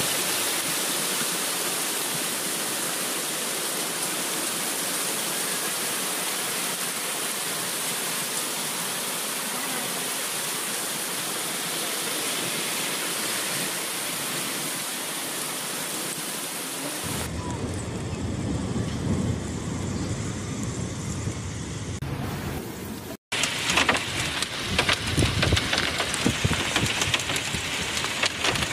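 Heavy rain pouring down on pavement and cars, a steady dense hiss. Partway through it cuts abruptly to louder, more uneven rain with a low rumble, and the level jumps about.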